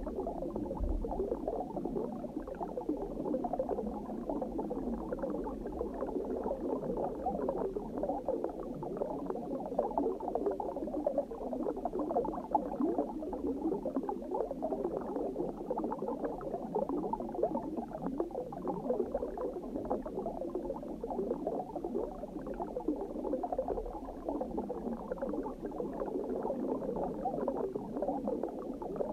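Steady, muffled underwater bubbling ambience: a dense stream of small bubbles with no sharp events or changes.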